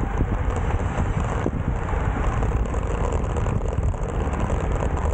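Steady wind rushing over the microphone of a bike-mounted Insta360 X4 action camera while riding at race speed.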